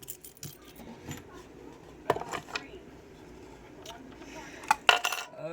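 Small objects being handled and set down on a tabletop: a few scattered clicks and knocks, the loudest about two seconds in and a cluster near the end.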